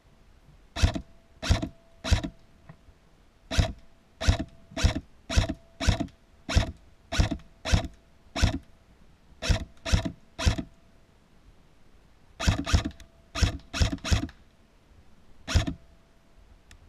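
Lancer Tactical M4-style airsoft rifle firing single shots, about twenty in all, in quick irregular strings of two to five with short pauses between.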